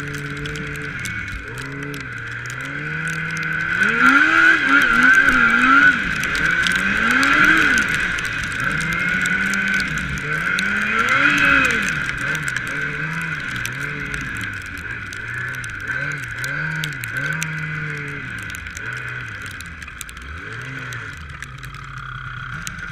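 2006 Yamaha Apex snowmobile's four-stroke four-cylinder engine under way, its note rising and falling again and again as the throttle is worked, over a steady high whine. Loudest from about four to twelve seconds in.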